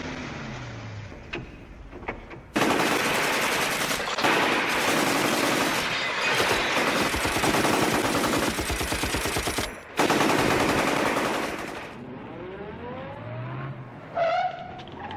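Several Thompson submachine guns firing in long continuous volleys, from about two and a half seconds in to about twelve seconds, with a brief break near ten seconds.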